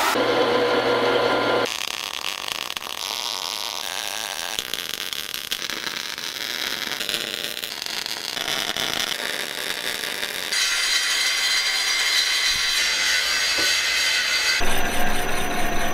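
A run of short metal-shop work sounds cut together, changing abruptly every few seconds. It opens with a sandblast cabinet's air blast over a low hum, has arc-welding crackle in the middle, and ends with a benchtop milling machine cutting steel.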